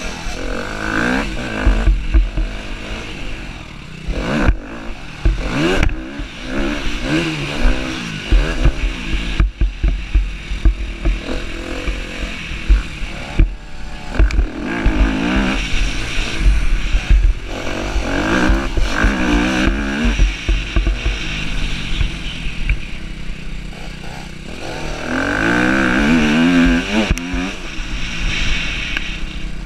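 Husqvarna TC250R motocross bike engine, heard from on board, revving up and dropping back again and again as the rider opens the throttle and shifts. Wind buffets the microphone as a heavy low rumble, and there are occasional sharp knocks as the bike rides over the rough dirt track.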